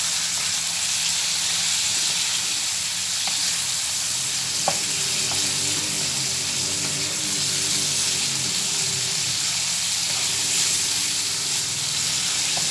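Thin strips of chicken breast sizzling steadily in very hot ghee in a non-stick wok, stirred and turned with a wooden spoon, with one knock about four and a half seconds in. The heat is high so the meat sears without giving up its water.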